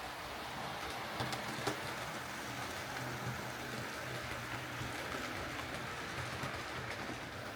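Hornby OO gauge Battle of Britain class model steam locomotive running along the track on a test run after repair: a steady whir of motor and wheels, with a couple of sharp clicks about a second and a half in.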